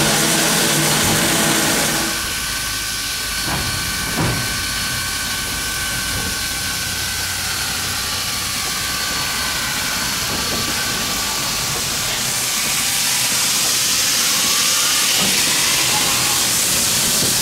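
Baldwin-built 2-6-6-2 Mallet steam locomotive standing under steam, with a steady hiss of escaping steam that grows louder about two-thirds of the way through. A steady hum stops after about two seconds, and two short knocks come about three and four seconds in.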